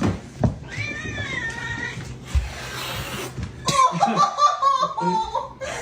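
A domestic cat meowing, with one long arching meow about a second in and shorter choppy calls later on.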